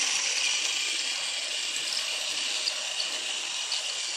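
Battery-powered TrackMaster Thomas toy engine running along plastic track: the steady whirring hiss of its small motor and gears, with a few light clicks from the wheels over the track.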